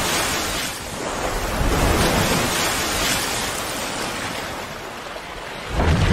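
Logo-intro sound effect: a rush of noise that swells and eases a few times, then a deep boom near the end.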